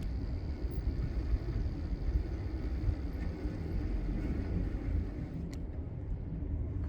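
Low, steady rumble of wind on the microphone and road noise from a bicycle ride through city streets, with a single sharp click about five and a half seconds in.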